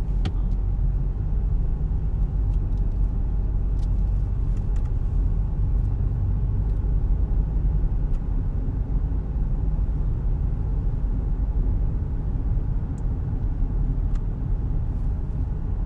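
Car driving, heard from inside the cabin: a steady low road rumble.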